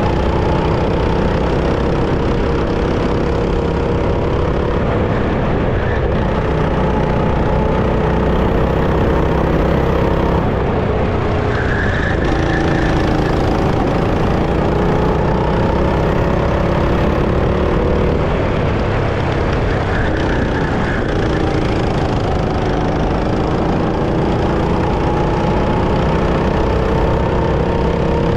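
Go-kart engine running hard, its revs dipping and climbing again a few times.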